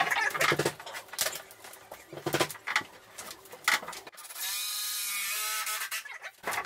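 Knocks and clatter of timber being handled, then a power drill runs steadily for about two seconds and stops.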